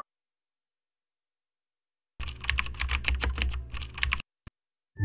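Keyboard typing sound effect: a fast run of key clicks starting about two seconds in and lasting about two seconds.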